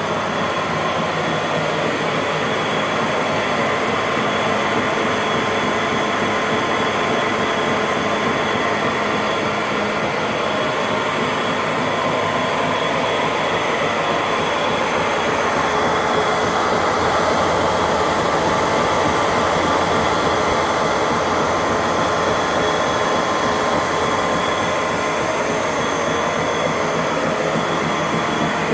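Repaired treadmill running steadily: the drive motor whines over the rumble of the belt and rollers, and the sound swells a little midway.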